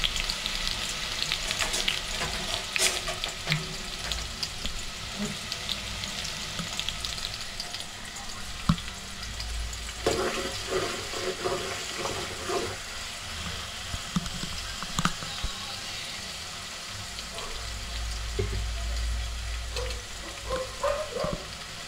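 Chopped onions sizzling in hot oil in a metal pot, with a spoon stirring and scraping against the pot around ten seconds in.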